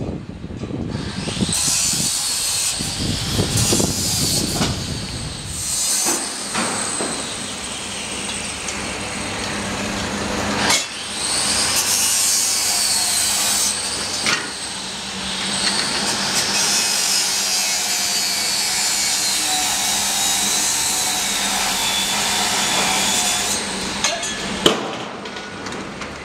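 Construction-site power tool running, a high whine that rises and falls in pitch over a steady noisy din, with a couple of sharp knocks, one about ten seconds in and a louder one near the end.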